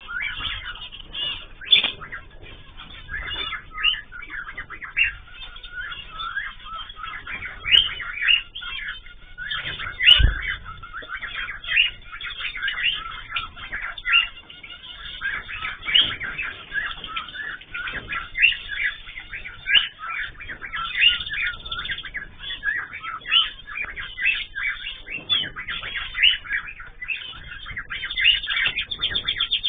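Ornamental cage birds (cockatiels, zebra finches and canaries) chirping and calling continuously in many short, overlapping calls, with a few low thumps, the loudest about ten seconds in.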